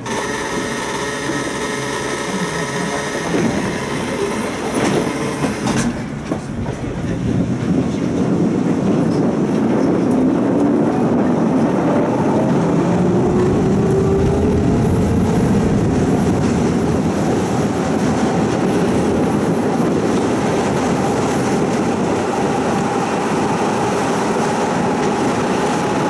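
Electric tram running, heard from on board: a single click about six seconds in, then it gets louder as it gathers speed, the motor's whine rising slowly in pitch over the rumble of the wheels on the rails.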